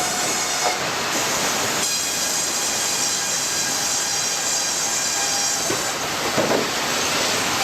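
Sawmill machinery running: a steady loud mechanical din with several high, steady whining tones, and a few brief squeals about six seconds in.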